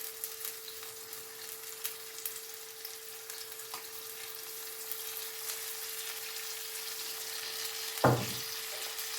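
Chicken strips, onion and garlic frying in oil in a pan over a high gas flame: a steady sizzling hiss with scattered small pops, under a faint steady hum, and a brief louder sound near the end.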